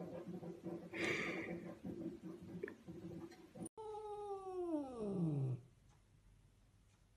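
Domestic cat yowling: one long call of about two seconds that slides steadily down in pitch and then stops abruptly. Before it there is a low steady hum.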